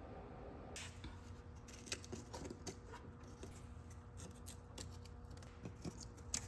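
Faint scattered clicks and light scrapes of cardboard templates being handled and pressed into place against the car's sheet-metal floor pan, over a low steady hum.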